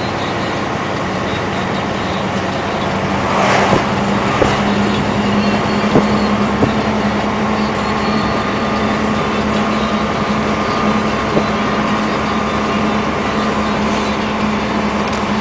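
Heavy truck's diesel engine running with a steady low drone, with a brief hiss about three and a half seconds in and a few light clicks.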